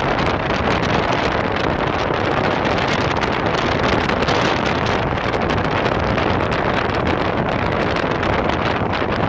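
Strong wind blowing across the microphone, a steady loud rushing rumble, mixed with the wash of breaking surf.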